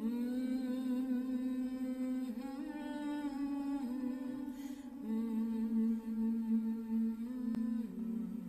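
A single voice chanting in long, held, hummed notes, each sustained for a few seconds before stepping to a new pitch.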